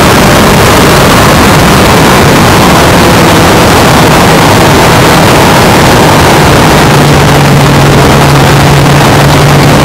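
1991 Yamaha FZR1000's inline-four engine running steadily at road speed, heard from a camera mounted on the moving bike. A loud rush of wind on the microphone almost buries it.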